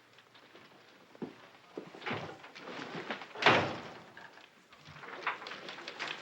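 A few scattered knocks and thuds, the loudest a sharp bang about three and a half seconds in that fades slowly.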